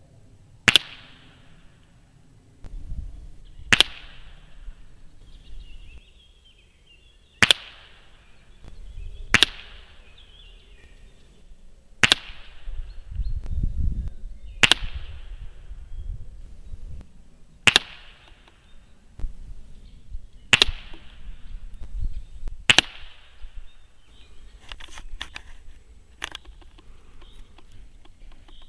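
QB 78 CO2 air rifle firing nine single shots, a sharp pop every two to three seconds, each with a short ringing tail. A few faint clicks follow near the end.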